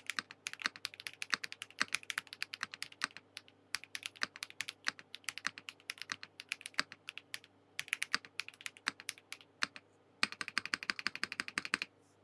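Fast typing on a Transition Lite TKL custom mechanical keyboard with HMX Raw switches, aluminium plate, full foam and Keykobo keycaps: a rapid, uneven stream of keystroke clacks with a few brief pauses, a quicker burst near the end, then stopping just before the end.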